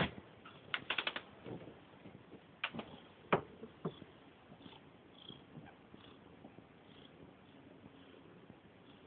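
A cat's faint sounds, with a quick run of sharp clicks and taps in the first few seconds.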